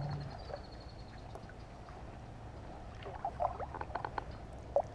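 Light handling noise in a kayak: a fishing rod and baitcasting reel being handled, with a cluster of small clicks, knocks and squeaks in the last couple of seconds over a faint outdoor background.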